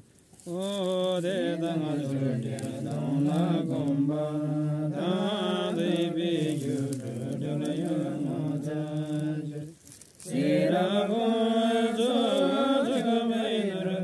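A Buddhist monk chanting a mantra solo in a low male voice, long melodic held notes that glide up and down, with short pauses for breath about half a second in and again around ten seconds in.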